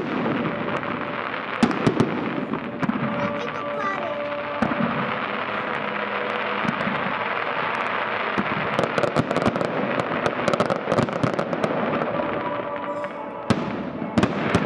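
Aerial fireworks bursting in a dense, continuous run of crackling and popping, with clusters of sharp bangs about two seconds in and again near the end.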